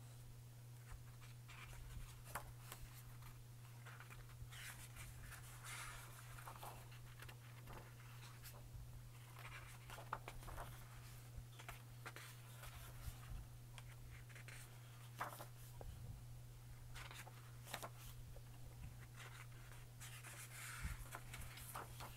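Faint rustling and soft flaps of thick pages being turned in a large hardcover photo book, over a steady low hum.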